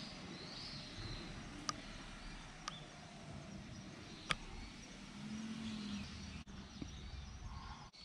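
Faint outdoor woodland ambience with a few short bird calls, a low background rumble, and three sharp clicks spread across the first half.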